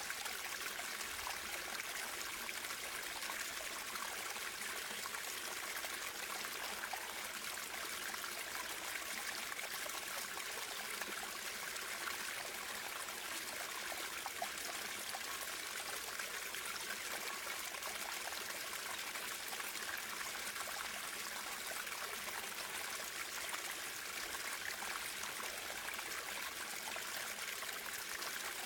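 Natural running water flowing steadily: an even, unbroken rush with a bright, hissy character.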